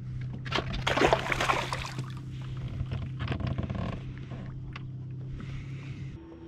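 A walleye dropped back into the lake, hitting the water with a splash about a second in, followed by lighter water sounds. Under it runs a steady low hum that stops near the end.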